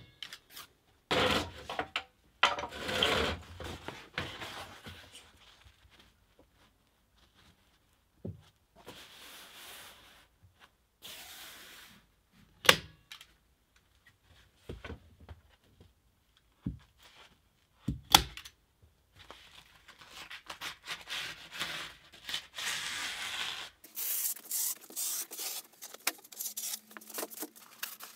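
Plastic vapor barrier sheeting rustling and crinkling as it is pulled up and smoothed against a wall, with a few sharp snaps as it is fastened.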